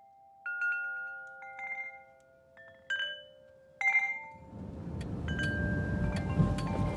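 Chimes struck one note at a time, each tone ringing on and overlapping the next. From about four and a half seconds the low rumble of a car's cabin on the move rises underneath.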